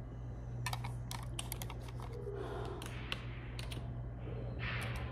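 Typing on a desktop computer keyboard with long fingernails: a run of irregular key clicks that stops about four seconds in, over a steady low hum.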